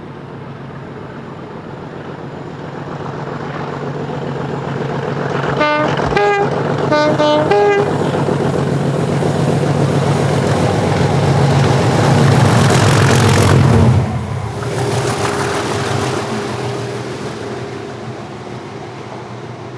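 Class 37 diesel locomotive 37608 passing under heavy power, its English Electric V12 engine growing louder to a peak about two-thirds of the way through and then dropping away as it goes by. Two short blasts on its horn come about a third of the way in.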